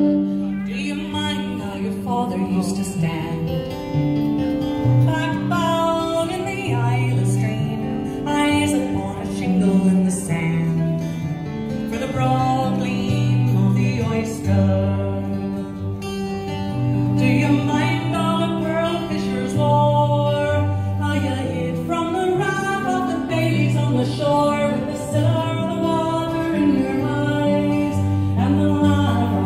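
Live folk music: a woman singing a melody over a strummed steel-string acoustic guitar.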